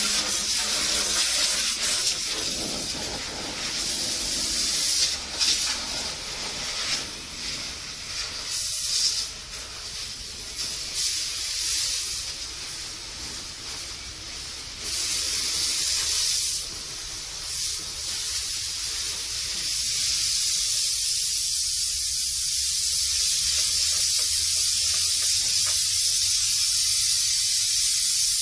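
High-pressure water jet hissing as it is sprayed against the metal panels and tracks of a combine harvester. The hiss swells and dips as the spray moves over different surfaces, then holds steady for the last several seconds.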